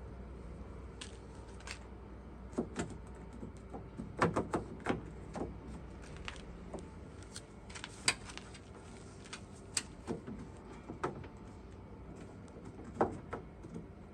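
Irregular clicks and knocks of hands working the door handle and latch mechanism inside a car door, small plastic and metal parts tapping and snapping, with a cluster of quick clicks about four seconds in.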